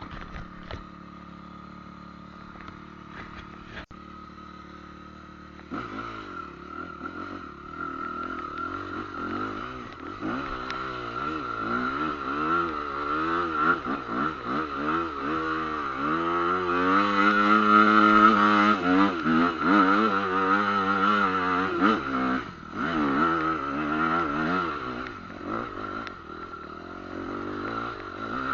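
Trail motorcycle engine running, then revving up and down from about six seconds in, its pitch wavering constantly as the throttle works. It is loudest about two-thirds of the way through.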